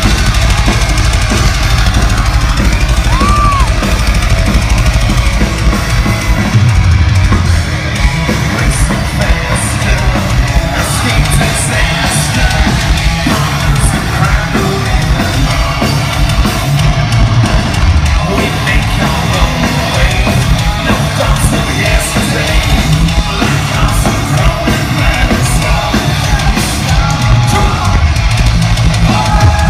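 Metal band playing live at high volume: drum kit, distorted electric guitars and shouted and sung vocals, heard from within the crowd.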